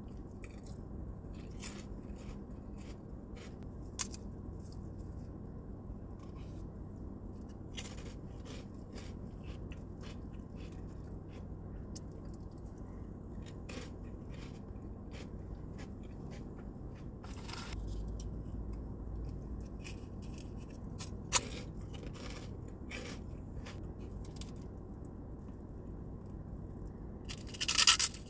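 Close-miked eating of pork rinds and cottage cheese: scattered sharp crunches and crackles with soft chewing in between, and a louder dense burst of crackling just before the end.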